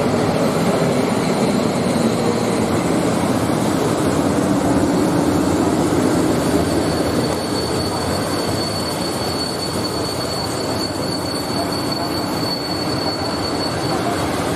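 PKP Intercity passenger train hauled by an EP07 electric locomotive rolling past along the platform: the locomotive and then the carriages run by with continuous rail and wheel noise. From about five seconds in there is a steady high-pitched squeal, and the rumble eases slightly soon after.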